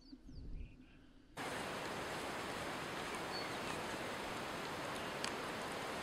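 A faint low rumble, then about a second and a half in a steady, even outdoor hiss starts abruptly and holds level, with a few faint ticks.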